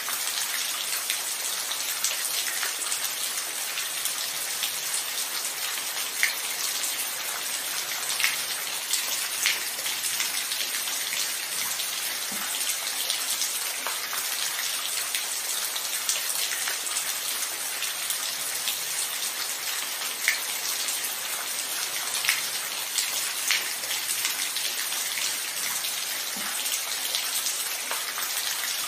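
Steady rain falling, an even hiss with scattered louder individual drops tapping close by.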